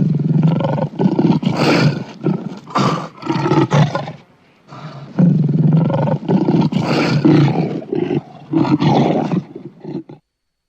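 Lion roaring and snarling in two long bouts of about four and five seconds, with a brief pause between, stopping sharply about ten seconds in.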